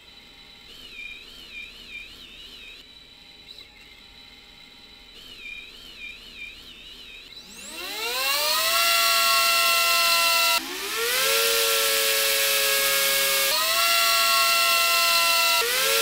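A tiny whoop drone's motors spin its propellers, first faintly at low throttle with a steady high tone and a warbling whine. About seven and a half seconds in, the throttle goes up and the whine sweeps quickly up into a loud, high-pitched multi-toned buzz. It cuts off and sweeps up again twice, once near eleven seconds and again just before the end, by which point the drone is running 3D-printed toroidal propellers.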